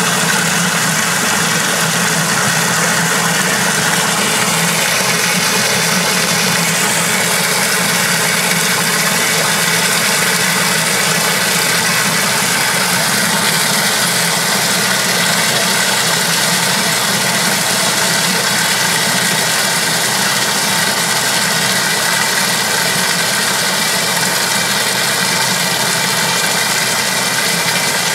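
Water pouring steadily into the tub of a 1986 Kenmore 60 Series direct-drive top-load washer as it fills for a rinse cycle.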